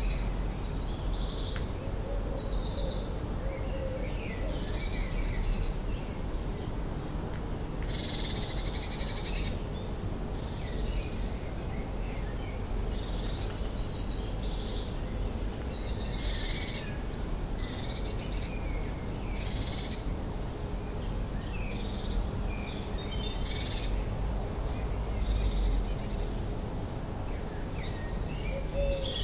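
Dawn chorus: several songbirds singing at once, their short trilling and warbling phrases overlapping and following one another without pause, over a steady low rumble.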